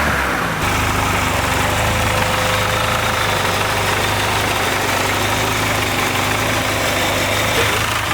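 Volvo 740 turbo's turbocharged four-cylinder engine dropping back from a rev and then idling steadily with an even low pulsing. The owner's complaint is a weird misfire.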